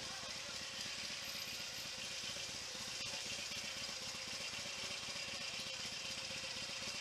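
Harley-Davidson motorcycle engine running steadily, its rapid low pulsing under a steady hiss of wind and road noise.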